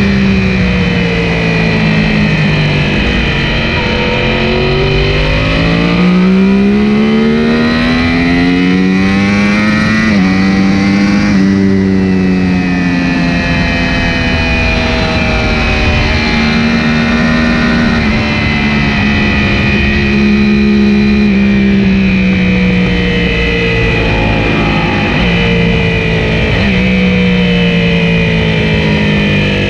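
Yamaha YZF-R1 sport bike's inline-four engine at speed, with pitch climbing under hard acceleration and dropping with each gear change and as it slows into corners. Steady wind rush runs underneath.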